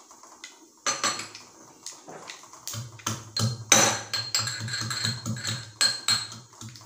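Garlic cloves being pounded with a pestle in a small mortar: repeated sharp knocks, about three a second, starting about a second in.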